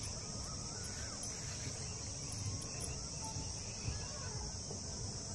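Steady high-pitched insect chorus, with a few faint bird calls.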